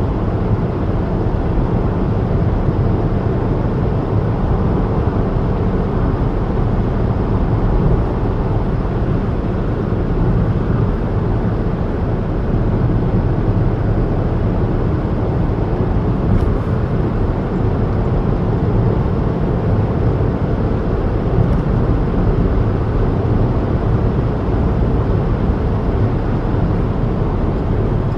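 A car driving at a steady speed: even engine and tyre noise on the road.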